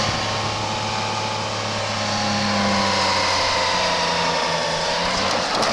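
Holden L67 supercharged 3.8-litre V6 engine running steadily with a high whine over the engine note, its pitch rising briefly near the end.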